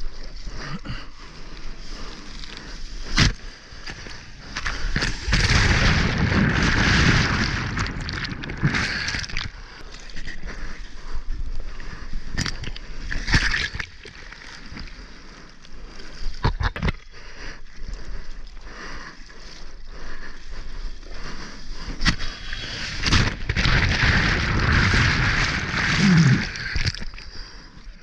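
Ocean water splashing and rushing around a camera held at the water's surface as a bodyboarder paddles through small waves, with sharp knocks of water hitting the camera. Whitewater churns loudly over the camera twice, once a few seconds in and again toward the end.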